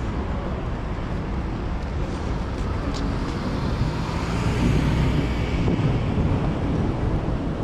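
Street traffic noise with a car passing close by, swelling from about four seconds in and easing off again near the end.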